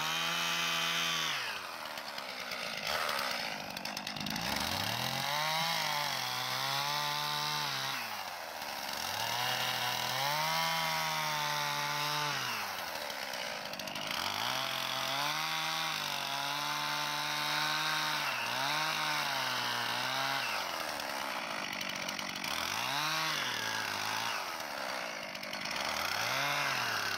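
Stihl two-stroke chainsaw cutting a hole straight down through pond ice, its engine revving up and easing off again and again as the chain bites in.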